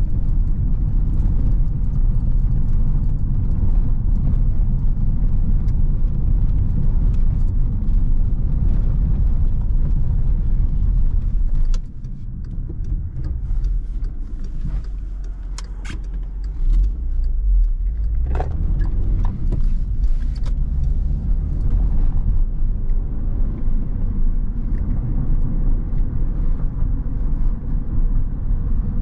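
Cabin sound of a 2011 Škoda Octavia II 1.6 MPI driving over a cobbled street, tyres and suspension rumbling. About twelve seconds in the rumble drops suddenly as the car slows at a junction, with a few light clicks and knocks. It then builds again as the car pulls away.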